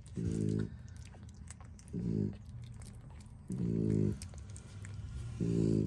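A dog's low, rough breathing noise, four times at steady intervals of about two seconds, like snoring. Under it are faint wet clicks from newborn Frenchton puppies suckling at the teats.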